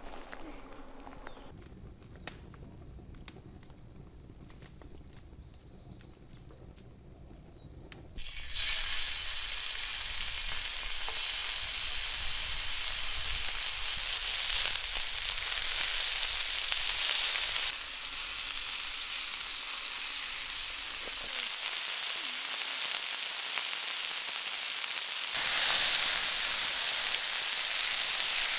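Pork tenderloin pieces sizzling in hot oil on a griddle plate over a campfire. After a quiet stretch, the sizzle starts suddenly about eight seconds in as the meat goes down, then holds steady and grows louder again near the end.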